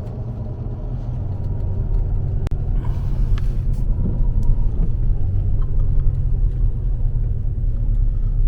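Steady low rumble of a Dodge Ram 1500 pickup on the move, engine and road noise heard from inside the cab, with a single click about two and a half seconds in.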